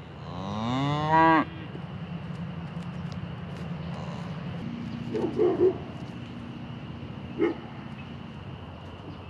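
A cow mooing for food: one rising call of about a second that cuts off sharply, followed by softer short sounds about five seconds in.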